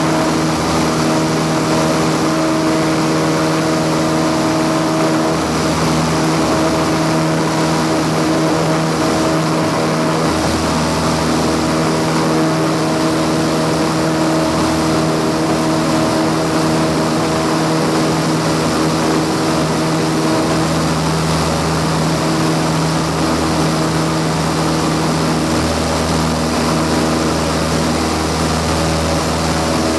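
Light aircraft's piston engine and propeller running steadily at high power in the climb after a touch-and-go, heard from inside the cockpit as a loud, even drone of several held tones.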